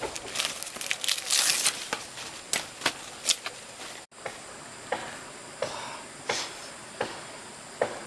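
Rustling and crackling of leafy stalks as a bunch of small round fruit on branching stalks is handled, with a dense rustle about a second in and scattered sharp snaps and clicks.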